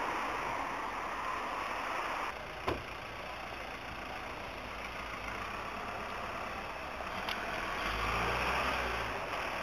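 Steady city street noise of traffic on wet roads, with a vehicle's engine rumbling louder near the end and a single sharp click about two and a half seconds in.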